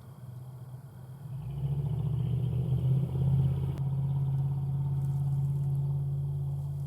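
A motor vehicle engine running steadily with a low hum; it swells louder about a second and a half in, then holds an even pitch.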